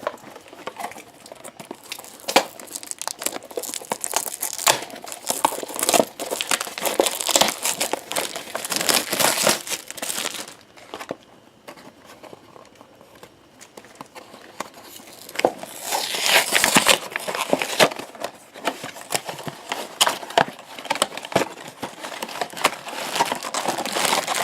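Funko Mystery Minis blind boxes being torn open and the crinkly wrappers inside handled, with a dense run of crackling and sharp rustles. It comes in two long spells with a quieter stretch in the middle.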